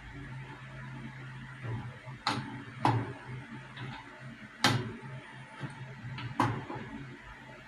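An adjustable wrench tightening the metal fitting of a flexible hose into a plastic parts-cleaner tank, only slightly so as not to strip it. It makes four sharp metal clicks and knocks, spaced a second or two apart, over a low steady hum.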